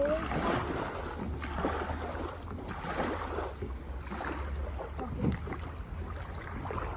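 Wind rumbling on a phone microphone, with faint scattered crackles and knocks over it.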